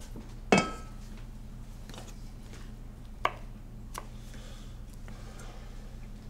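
Quiet room tone with a steady low hum, a short louder sound about half a second in, then two light, sharp clicks or knocks about three and four seconds in.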